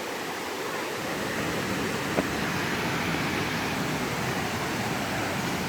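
Steady rush of water from a small waterfall pouring into a clear pool, with a brief click about two seconds in.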